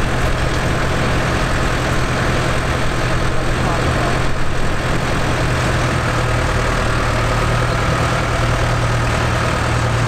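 New Holland tractor's diesel engine idling steadily close by, a constant low hum.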